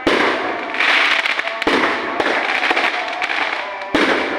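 Fireworks going off in a steady barrage: sharp bangs every second or so over a continuous dense crackling.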